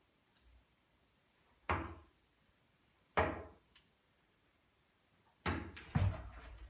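Steel-tip darts thudding into a bristle dartboard one at a time: two sharp thuds about a second and a half apart, then a third a couple of seconds later, followed by a louder, deeper knock and further clatter.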